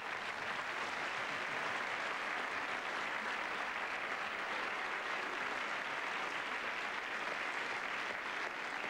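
A large theatre audience applauding, steady clapping from a full house.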